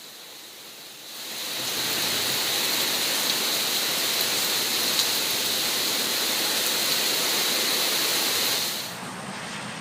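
Heavy rain and wind of a hurricane rain band: a steady, loud rushing that swells in about a second in and falls away near the end.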